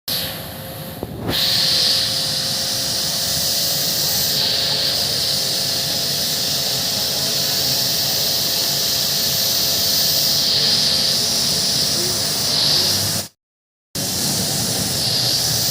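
Pressure washer jet spraying water, a loud steady hiss that starts about a second in, drops out briefly near the end and comes back.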